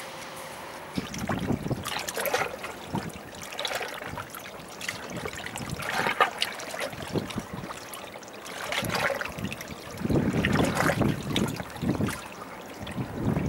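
Seawater sloshing and trickling among shoreline rocks, in irregular surges every second or two, starting about a second in.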